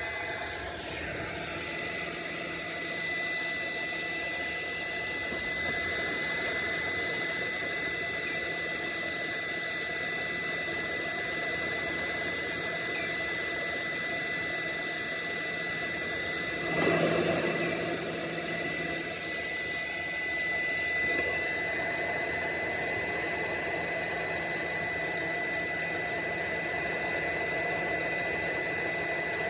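Hot air gun blowing steadily over a small circuit board to reflow the solder under its surface-mount parts, a continuous rush of air with a steady high whine. A brief louder swell comes just past halfway.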